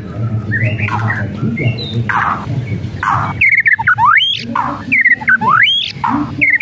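White-rumped shama singing: harsh, rasping 'kretekan' calls in the first half, then a repeated phrase of a quick run of short notes followed by a whistle that rises steeply, the agitated song of a bird worked up to full voice.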